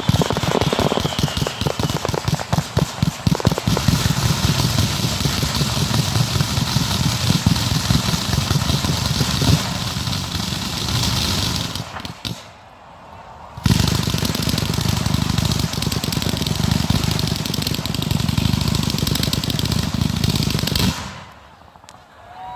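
Fireworks display: a dense stream of rapid bangs and crackling. The noise drops away suddenly twice, once about halfway through and once near the end.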